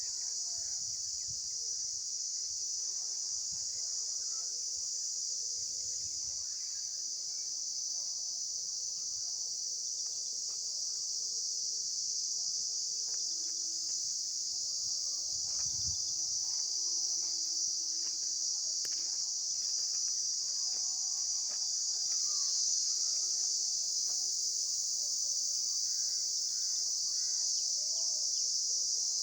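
Insect chorus: a steady, high-pitched drone that never breaks, growing a little louder in the second half.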